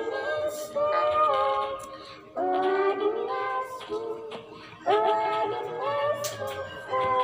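A girl singing a song into a handheld microphone, in phrases with short breaks for breath.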